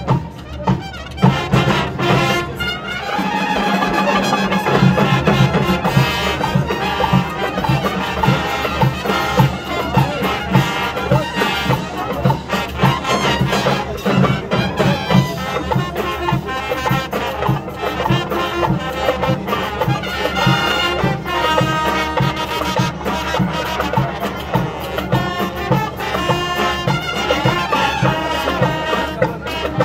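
Marching band of brass and drums playing: trumpets and trombones over a steady drum beat, the full band coming in about three seconds in.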